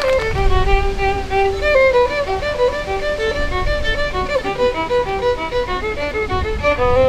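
Solo violin playing a tune in short, stepped notes.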